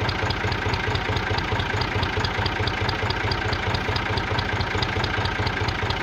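A motor running steadily, with a fast, even low pulsing like an idling engine and a light tick about five times a second.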